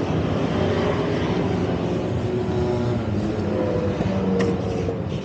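Steady city road traffic, motor vehicles running past, with two short clicks near the end.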